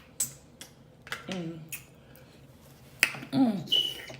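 Wet lip-smacking and sucking from eating with the mouth, a series of sharp smacks, with two short falling "mm" hums of enjoyment, the louder one about three seconds in, and a brief high squeak of sucking near the end.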